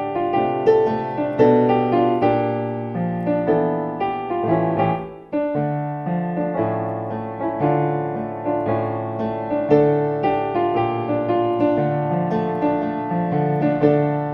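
Solo piano playing an instrumental song arrangement: chords and melody over a moving bass line, with notes struck and left to ring. The playing drops away for a moment about five seconds in, then carries on.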